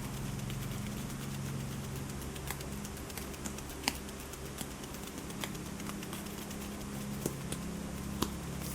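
Hand sounds: sparse, irregular light clicks and taps from fingers, over a low steady hum.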